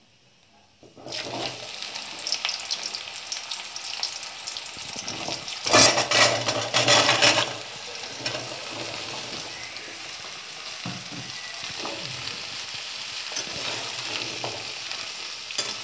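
Cut pumpkin, potato and drumstick pieces dropped into hot mustard oil and spices in a metal kadai, sizzling. The sizzle starts about a second in and is loudest from about six to seven and a half seconds as the bulk of the vegetables lands. It then settles to a steady sizzle, with a steel spatula scraping the pan as the vegetables are stirred.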